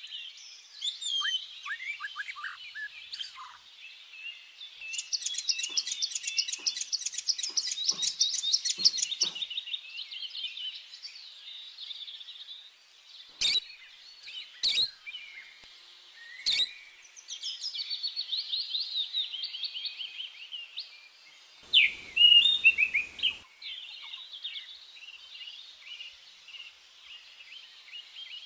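Small birds chirping and twittering without pause, with a fast trill of rapidly repeated high notes for several seconds about a fifth of the way in. A few sharp clicks come near the middle, and a brief loud burst of noise about three quarters through is the loudest sound.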